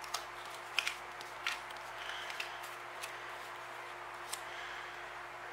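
Paper sticker sheets and planner inserts being handled on a desk: a few light ticks and rustles, over a steady low hum.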